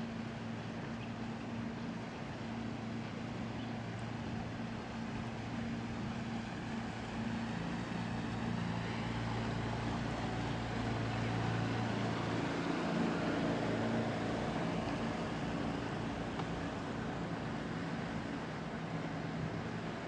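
A motor hums steadily over outdoor noise, and its pitch shifts a little past the middle.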